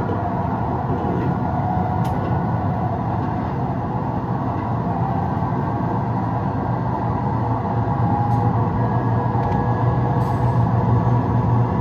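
Train driving simulator's running sound: an electric train's steady rumble and motor tones, played through the cab's speakers while the train picks up speed. It gets a little louder near the end.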